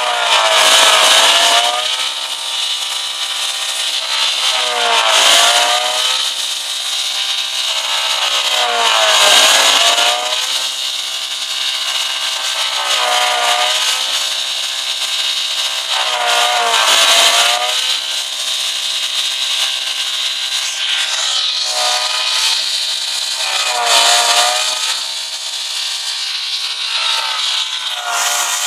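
Petrol car engine revved hard again and again, the revs climbing and dropping back about every four seconds. The smoking engine is being run to destruction.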